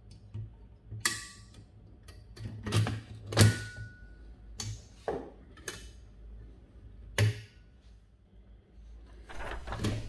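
Platen roller of a 1939 Bar-Lock typewriter being set back into the carriage and locked with its release levers: about seven sharp metal clicks and clunks spread over several seconds, a couple with a short ring.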